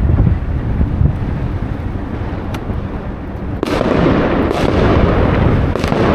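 Fireworks and firecrackers going off, with a few sharp cracks, over a low rumble of wind on the microphone; a bit over halfway through, a dense, louder crackling sets in and keeps going.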